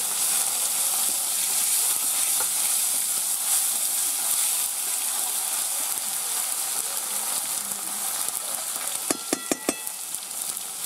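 Tomato pieces sizzling steadily in hot oil in a metal kadai, stirred with a flat metal spatula. Near the end come four or five sharp, ringing metallic clinks as the spatula knocks against the pan.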